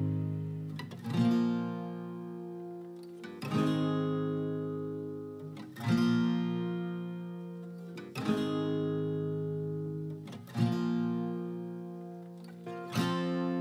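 Background music: acoustic guitar strumming slow chords, one every two to three seconds, each left to ring out and fade.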